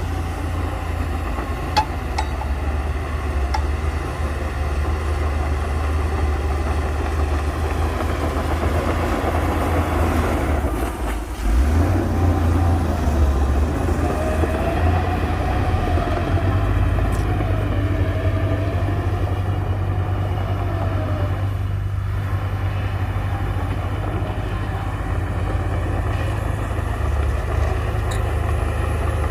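Heavy earthmoving machinery's diesel engine running with a deep, steady rumble, dipping briefly about eleven seconds in, with a wavering whine in the middle and a few sharp clanks.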